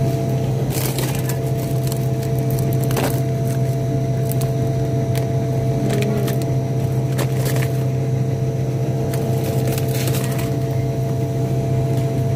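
Steady low hum of supermarket freezer cabinets, with scattered crackles and clicks from plastic-wrapped frozen fish packages being handled.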